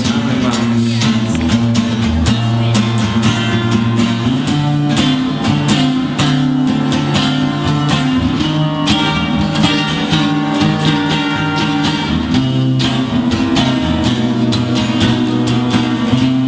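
Music: a song's instrumental passage of strummed acoustic guitar in a steady rhythm over sustained bass notes.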